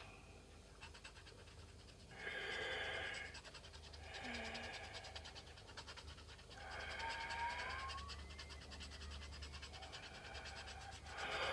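Silver coating of a scratch card being scratched off in quick, faint strokes, with a man breathing out audibly four times, about two, four, seven and eleven seconds in.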